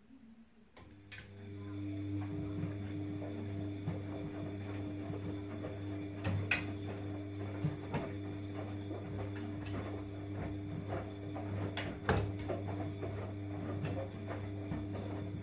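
Bosch front-loading washing machine running: a steady motor hum from the turning drum, which comes up about a second in and then holds. Scattered clicks and knocks from a cat's paws tapping at the door glass and detergent drawer, the loudest twice, about midway and near 12 seconds in.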